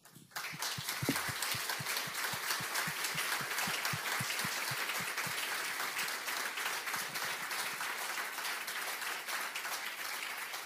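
Audience applauding: many people clapping steadily, starting a moment in and easing a little near the end.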